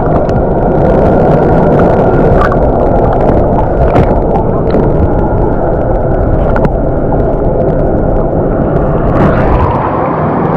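Steady loud roar of water rushing through the dam's outflow, with a deep rumble under it and a few small clicks.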